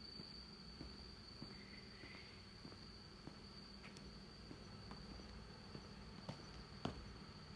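An insect trilling on one unbroken high pitch, with faint footsteps at a walking pace and one sharper tap near the end.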